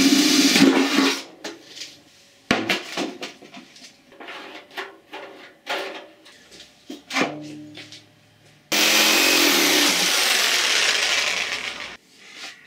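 A cordless drill runs for about the first second on a steel washing machine drum. Knocks and scrapes follow as the drum is handled and set down on plywood. About nine seconds in, an electric saw runs steadily for about three seconds, cutting plywood.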